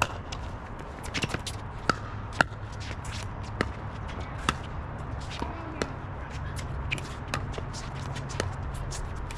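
Pickleball paddles hitting a plastic pickleball back and forth in a doubles rally: a string of sharp pops at uneven spacing, some louder than others, the loudest about two seconds in.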